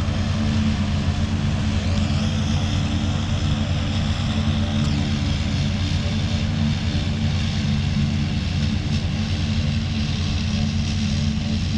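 Farm vehicle's engine running steadily while driving slowly through a cornfield, a low, even drone with a hiss above it.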